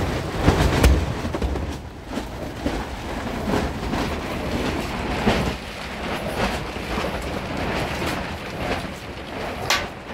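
Storm noise: a continuous rumbling rush with irregular knocks, and a sharp crack near the end.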